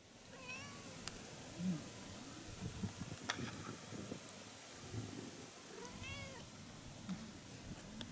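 A cat meowing twice: two short meows that rise and fall in pitch, about five seconds apart, with faint clicks and rustling between.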